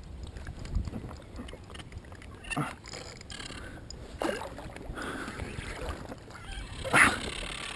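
Water lapping and gurgling close by, broken by a few short splashes and gurgles; the loudest comes near the end.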